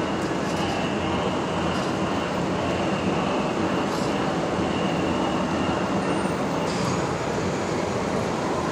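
Steady rumble of a subway train running beneath the street, coming up through the sidewalk ventilation grates, with a faint high wheel squeal coming and going over it.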